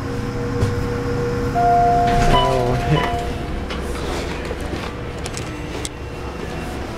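Otis traction elevator arriving at a floor: a steady mechanical hum and rumble from the moving car, a held tone starting about a second and a half in, then the hum stops about three seconds in as the doors open.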